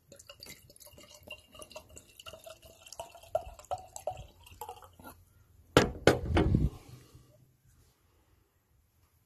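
Still cider glugging out of a glass bottle into a glass, with the pitch of the pour shifting as the glass fills. About six seconds in come two loud knocks as the glass and bottle are set down on a glass-topped table.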